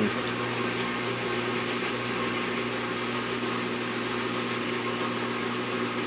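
GE GTW465 high-efficiency belt-drive top-load washer running in its drain-and-spin cycle as the spin begins, a steady even mechanical hum.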